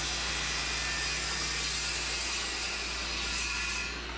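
A machine running steadily: an even rushing noise over a low hum, like an air-moving motor, with the hiss easing slightly near the end.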